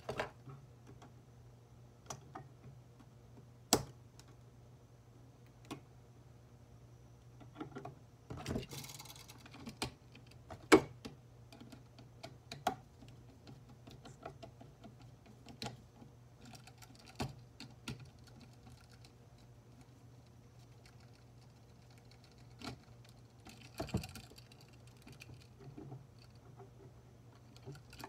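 Irregular clicks and taps of a screwdriver, wire ends and a plastic-bodied electrical outlet being handled while wires are fastened to its terminal screws, with a short rustle about 9 s in and the sharpest click about 11 s in. A steady low hum runs underneath.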